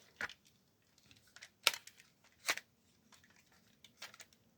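Hard plastic parts of a vintage Diaclone Galaxy Man toy clicking and knocking as its leg is handled and fitted: a few separate sharp clicks, the loudest two about a second and a half and two and a half seconds in.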